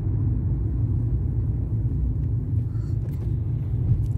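Steady low rumble of engine and road noise heard inside a car's cabin.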